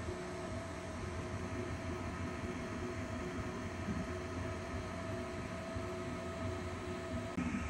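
Voron 2.4 3D printer running a print: its Afterburner toolhead's cooling fans and stepper motors make a steady hum with a few steady whining tones as the toolhead moves.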